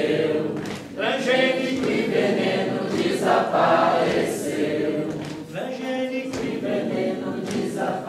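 A group of voices singing an unaccompanied chant together in Portuguese, in phrases with short breaks about a second in and again about six seconds in.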